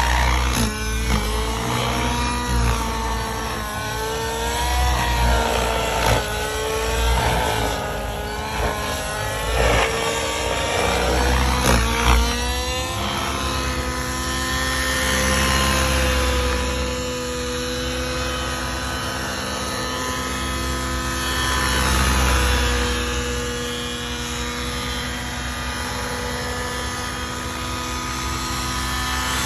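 Nitro-powered 700-size RC helicopter running in flight on a new engine being broken in. The engine note rises and falls repeatedly for the first dozen seconds or so, then settles into a steadier pitch.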